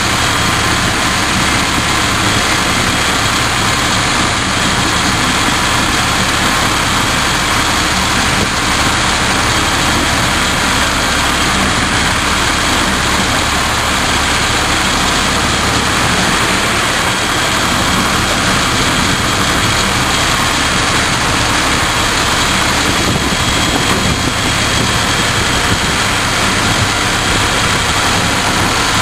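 The engine of a miniature railway locomotive running steadily as the train travels, heard close up from behind the driver, with the noise of the running train mixed in.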